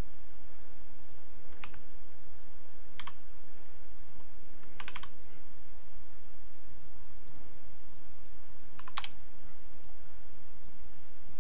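Scattered computer keyboard and mouse clicks: a few single clicks, and two quick runs of three or four, over a steady low hum.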